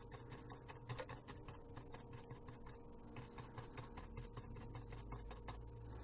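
Faint, rapid, irregular clicking and scratching, several ticks a second, over a steady low electrical hum: small hand-tool work on a phone's circuit board.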